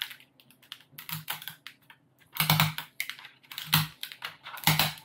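Plastic casing of a bulged laptop battery pack being handled and pried apart on a desk: a run of irregular clicks and knocks, the loudest from about two and a half seconds on.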